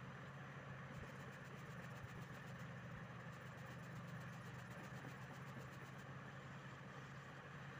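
Faint steady low hum with an even hiss.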